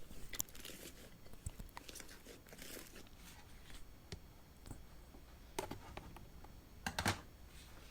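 Slime being squeezed and pressed: faint, irregular clicks and crackles, with two louder pops near the end.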